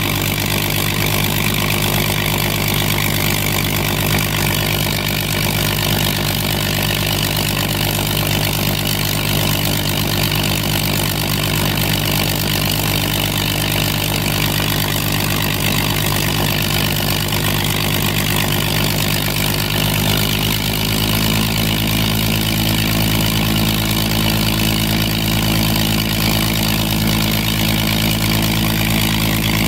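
Spitfire Mk XIV's Rolls-Royce Griffon V12 piston engine running steadily at low power during a ground run. About twenty seconds in, its note steps up slightly and gets a little louder.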